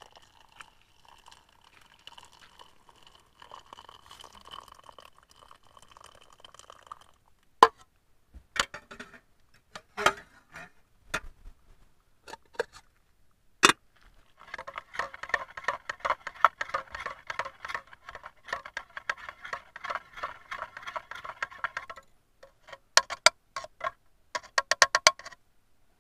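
Hot water poured from a camping pot into an enamel mug of black coffee, a soft trickle, followed by several separate clinks of metal cookware and the pot lid being set down. Then a spoon stirs the coffee in the enamel mug with rapid clinking for several seconds, and a few more clinks and a short spell of stirring come near the end.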